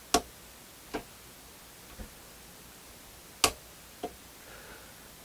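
Five sharp, irregular clicks over a quiet room background. The two loudest come just after the start and about three and a half seconds in.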